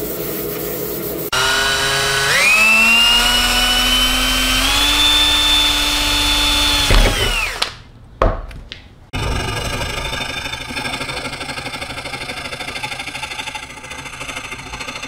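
A small electric power tool like a drill spins up in two steps, runs steadily, then winds down and stops. After a brief lull with a few clicks, a fine-bladed hand saw takes fast, even strokes through a thin model-car part clamped in a vise.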